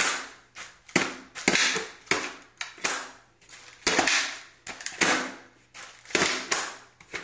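Modular motorcycle helmet's plastic chin bar being struck upward by hand, over and over: a quick series of sharp clacks and knocks as the chin-bar latch pops open and the bar is snapped shut again. The chin bar releasing when hit from below is a safety fault in the helmet.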